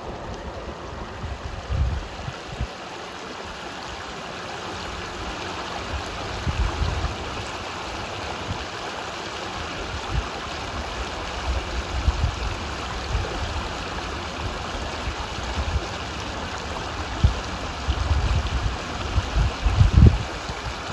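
Shallow creek water running and trickling over gravel, a steady rush, with irregular low bumps on the microphone that grow stronger near the end.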